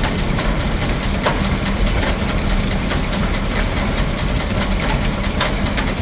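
Steam-engine-driven Frick sawmill running: a steady mechanical din with a low hum and dense rapid clicking, with a few sharper knocks standing out.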